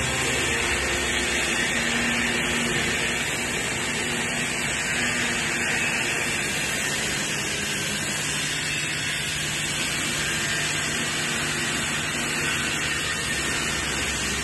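Grease plant machinery running, a steady hiss-like noise with a low hum under it.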